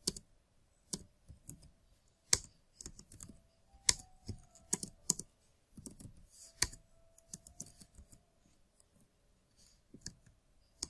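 Typing on a computer keyboard: irregular, scattered keystrokes with short pauses between bursts, a few clacks louder than the rest.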